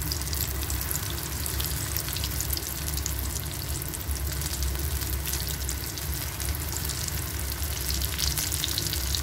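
Golibaje batter balls deep-frying in hot oil in a kadai: a steady sizzle and crackle of bubbling oil.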